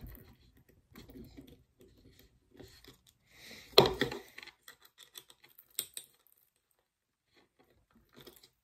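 Light clicks, taps and small metallic rattles of a fingerboard and its trucks being handled and adjusted with a small tool, with a sharper knock about four seconds in.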